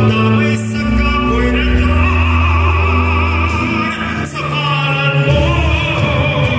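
Musical-theatre song performed live: a male lead singer holds long notes with vibrato over accompaniment with deep sustained bass notes.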